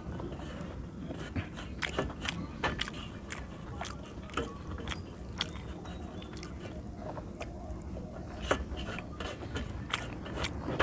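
Close-up eating sounds: fingers squishing and scraping rice against a brass plate, and chewing with many irregular sharp wet clicks.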